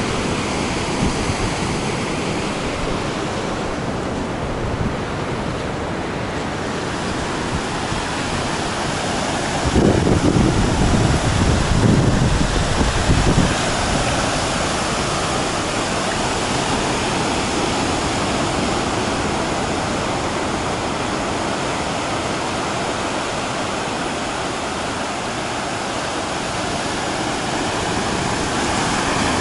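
Ocean surf washing steadily onto the beach, a continuous rushing noise, with a louder low rumble for about four seconds around ten seconds in.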